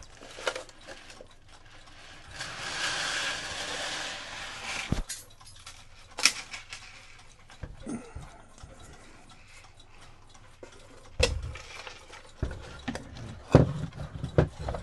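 Handling noise of a wooden cuckoo clock and its parts being moved about on a workbench: a scraping rustle early on, then scattered sharp clicks and knocks, the loudest about eleven seconds in.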